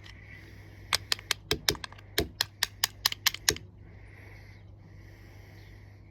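About a dozen sharp clicks over roughly two and a half seconds, irregular at three to four a second, from a hand tool working the main jet out of a 4-stroke lawnmower carburettor.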